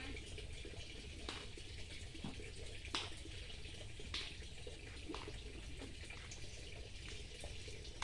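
Steady trickle of running water, with a few sharp drip or splash clicks, the loudest about three seconds in.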